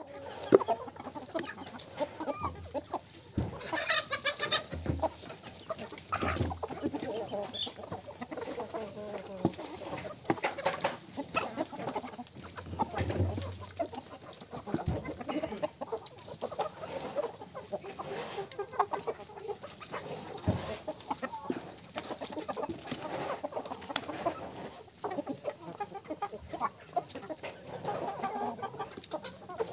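A flock of chickens clucking steadily as they feed, many birds calling over one another, with one louder, higher call about four seconds in.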